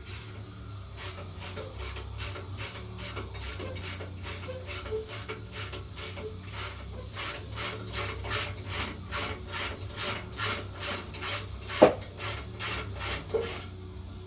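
Socket ratchet being worked in quick back-and-forth strokes to undo the bull bar's mounting bolts: a rasping ratchet burst about three times a second. One loud metallic clank near the end.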